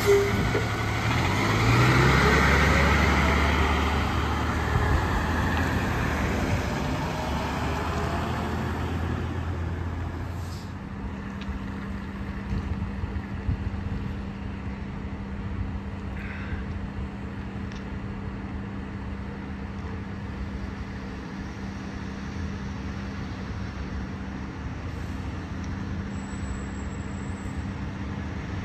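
Fire engine's diesel engine pulling away and accelerating, its pitch rising over the first few seconds with tyre and road noise, then fading. About ten seconds in, a quieter steady low engine hum takes over and runs on unchanged.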